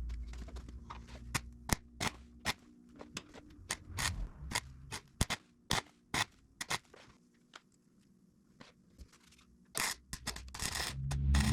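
Welder laying a bead inside a nut held over a broken exhaust-manifold stud: irregular sharp crackles and pops, with a quieter gap a little past the middle and a dense run of crackling near the end.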